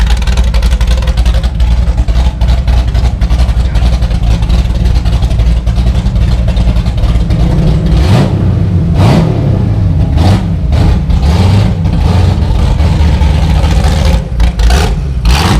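De Tomaso Pantera's Ford V8 running with a deep, steady rumble, then revved up and down a few times about halfway through, with quick sharp throttle blips near the end.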